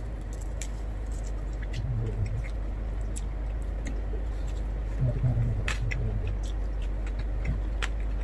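Close-miked eating sounds: a person chewing roast pork and rice, with scattered small wet clicks and smacks from the mouth, over a steady low hum.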